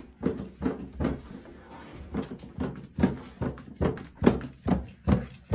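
A door knocking and thudding again and again, about two to three knocks a second, as if it is being bumped or rattled against its frame.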